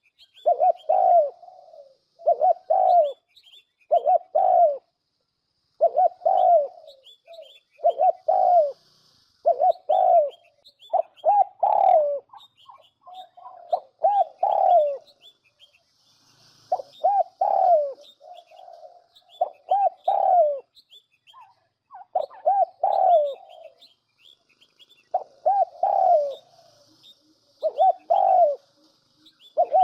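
Spotted dove cooing, a lure call for bird trapping: short phrases of a few coo notes repeated about every two seconds. Faint high chirps of small birds sound between the phrases.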